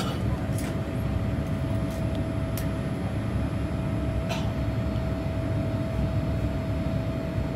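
Boeing 787 Dreamliner cabin noise in the climb to cruising altitude: the steady low rumble of its GEnx engines and the airflow, with a faint steady hum running through it and a few faint clicks.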